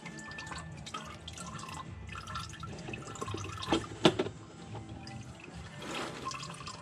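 Engine oil dripping and trickling from a loosened oil filter into a drain pan. Two sharp knocks about four seconds in.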